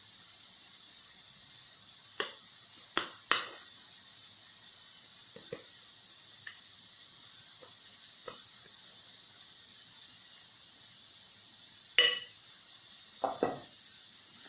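Scattered sharp clinks and knocks of a bowl and utensil against a cake pan as cake batter is scraped into it, the loudest about twelve seconds in, over a steady hiss.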